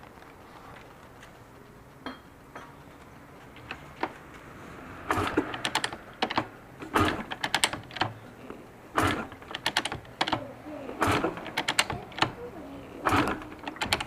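Kawasaki KDX200SR single-cylinder two-stroke engine making an abnormal noise: a few scattered clicks, then from about five seconds in, bursts of rapid metallic clicking and rattling every one to two seconds.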